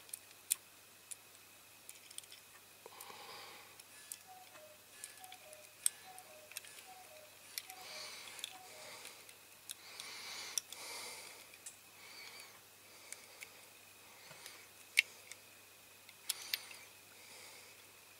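Faint clicks and taps of small diecast metal toy-tractor parts being handled and pressed together by hand, with soft rustling between them; a few sharper clicks stand out.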